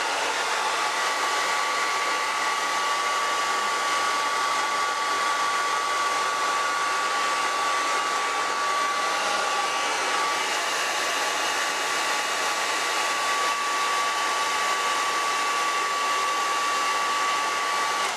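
Handheld hair dryer running steadily: a constant rush of blown air with a steady high whine from its motor.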